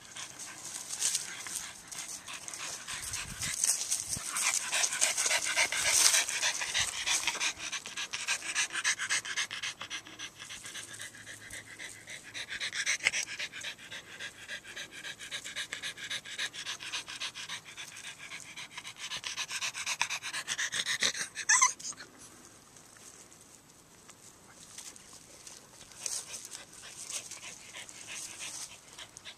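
A bulldog panting fast and hard close to the microphone, quieter for the last several seconds.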